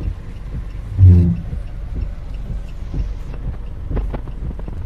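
Steady low rumble of wind and rain heard from inside a waiting car. About a second in comes a short, low-pitched hum, the loudest moment, with a few faint clicks later on.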